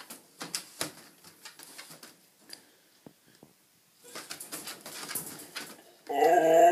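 Siberian Husky puppy shifting about in a wire crate, with scattered clicks and rustles. About six seconds in it breaks into its loud, wavering, howl-like 'talking' vocalization.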